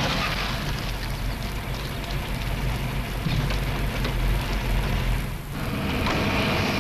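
Car engine running under heavy hiss, with a low rumble that drops away about five and a half seconds in.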